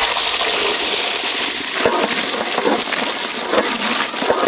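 Small onions (shallots) frying in hot sesame oil: a loud, dense sizzling and crackling, with a few short knocks of stirring from about two seconds in.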